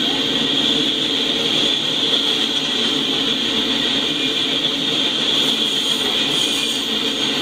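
Double-stack intermodal freight train rolling past: a steady rushing noise of steel wheels on the rails, with a high hiss over a lower rumble.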